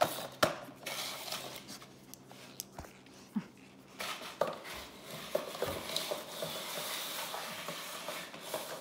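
Small plastic drawer unit being knocked and pushed about by a dog's nose and paws on a concrete floor: several sharp plastic clacks early, then about four seconds of scraping and rubbing as it slides across the floor.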